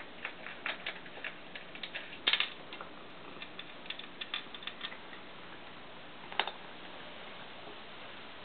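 Dry kibble clicking and rattling in the plastic chute and bowl of an automatic pet feeder as a cat paws kibble out and eats. The small irregular clicks come close together, with a louder clatter about two seconds in and another about six seconds in.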